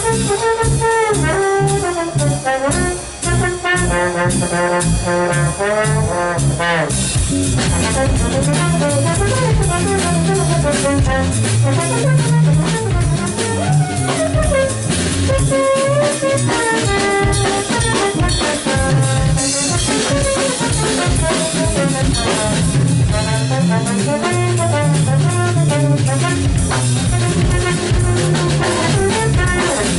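A live jazz trio plays: a trombone carries melodic lines over keytar and a drum kit.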